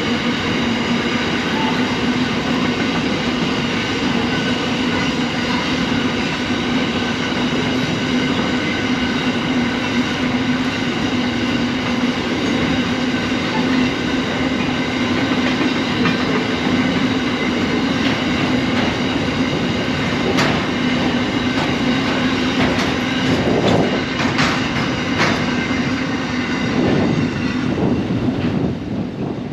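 Covered hopper wagons of a narrow-gauge freight train rolling past, a steady rumble of steel wheels on rail with a constant hum. Several sharp clacks come in the last stretch as the final wagons go by, then the sound falls away.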